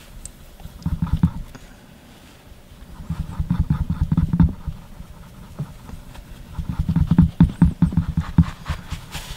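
Car wax being buffed onto the data side of a DVD with a folded paper-towel pad, in quick circular strokes that thud softly through the disc on the surface beneath. The rubbing comes in three quick spells: about a second in, again from about three seconds, and from about six and a half seconds.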